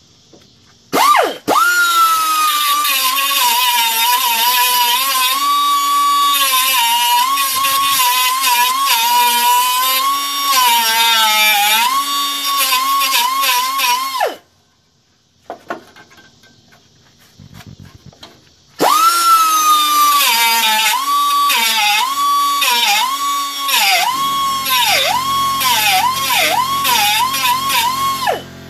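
Small angle grinder spinning up and grinding steel bodywork, a high whine that dips in pitch each time the disc bites into the metal and recovers as it eases off. It runs for about thirteen seconds, stops for about four, then starts again and grinds until near the end.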